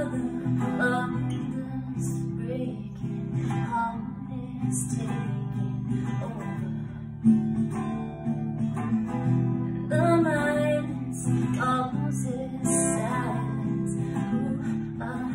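Acoustic guitar being played solo, ringing notes and chords throughout.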